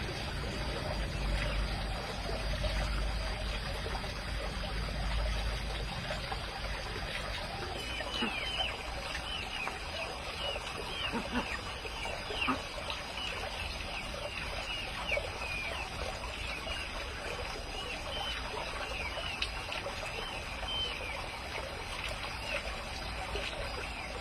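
Chicks peeping in a fast, continuous run of short, high chirps starting about eight seconds in, over a steady trickle of water.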